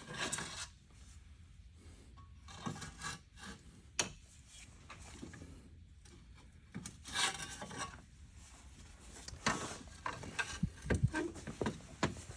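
Car parts being worked into place by hand: bursts of scraping and rubbing, a sharp click about four seconds in, and a run of knocks near the end.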